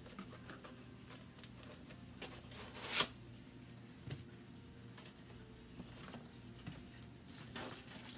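Paperboard box being handled and its flaps opened: light rustles, scrapes and taps, with one louder brief rustle about three seconds in.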